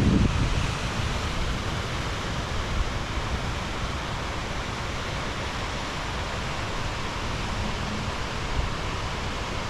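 Heavy rain falling in a steady hiss. A gust of wind on the microphone dies away at the start.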